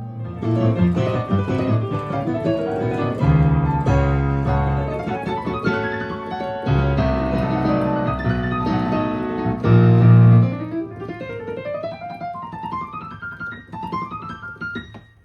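Solo piano playing, with heavy low chords and, in the last few seconds, quick rising runs up the keyboard before it stops.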